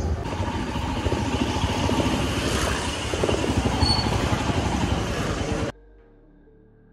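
Loud, rough rushing road and wind noise from a moving vehicle. It cuts off abruptly near the end, leaving faint background music.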